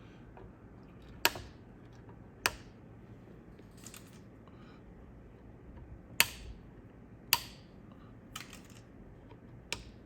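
Side cutters snipping off the leads of freshly soldered capacitors on a circuit board: a series of sharp, separate clicks, four or five loud ones spread irregularly, with a few fainter ones between.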